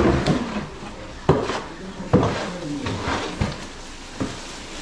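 Five sharp knocks and clatters, as of hard objects being handled and set down, with a voice talking faintly between them.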